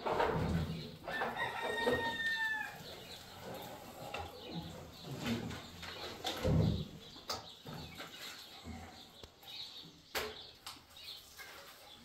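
A rooster crows once, about a second in: one long call lasting about a second and a half, falling slightly at the end. Around it come scattered knocks and low thumps, the loudest near the start and about halfway through.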